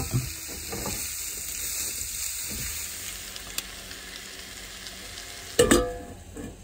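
Chopped vegetables sizzling steadily in coconut oil in a pan on a portable stove. There is a sharp clank right at the start and a louder one near the end.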